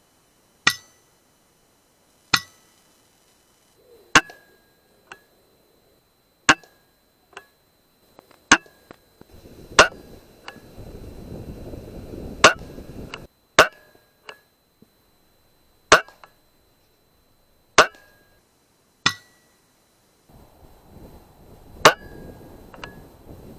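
About a dozen sharp shots from sub-12 ft-lb pre-charged pneumatic air rifles, one every second or two. Several are followed under a second later by a fainter click.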